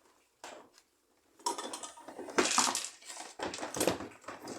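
Clattering, rattling handling noise as a camera tripod is picked up and moved closer. There is a short knock about half a second in, then a couple of seconds of irregular rattling and scraping.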